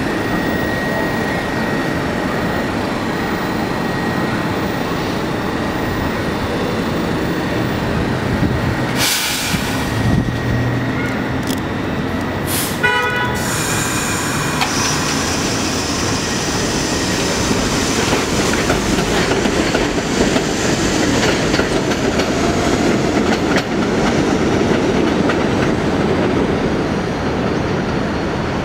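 New York subway train of R62A cars running past on the elevated steel structure: a steady rumble and clatter of wheels on rails. A few sharp clanks about nine to thirteen seconds in, and the noise grows louder in the second half.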